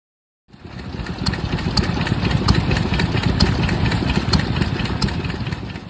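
An engine running steadily at idle, with sharp ticks about once or twice a second over the rumble; it fades in shortly after the start and cuts off abruptly at the end.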